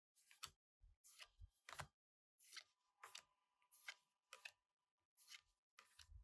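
Faint, irregular flicks and rustles of trading cards being slid and flipped by hand: about a dozen short card sounds as a freshly opened booster pack is gone through.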